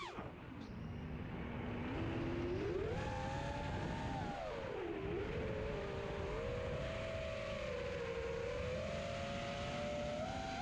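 FPV racing quadcopter's brushless motors and 5-inch props whining, the pitch rising and falling with throttle changes, dipping about halfway through and climbing again toward the end.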